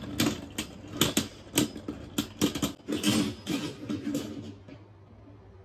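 Two Beyblade spinning tops, Guilty Longinus and Ultimate Valkyrie, clattering and knocking against each other and the plastic stadium in a quick, irregular run of clicks as both lose spin. The clatter dies away about four and a half seconds in as the tops come to rest.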